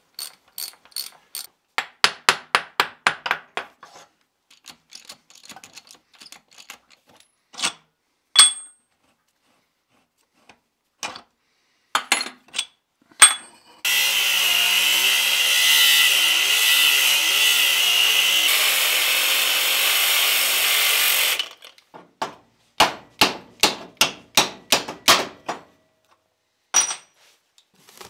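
Runs of quick ratchet-wrench clicks and a few single metal clinks, then about fourteen seconds in a cordless angle grinder grinding steel for about seven seconds with a steady whine, then more runs of ratchet clicks.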